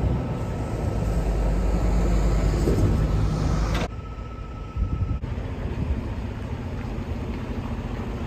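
Semi truck's diesel engine running with a steady low rumble as the tractor-trailer backs up, the level dropping suddenly about four seconds in.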